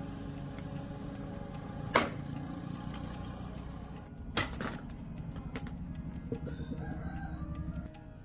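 A steady low rumble that cuts off abruptly near the end, broken by sharp knocks about two seconds in and a louder double knock a little after four seconds in.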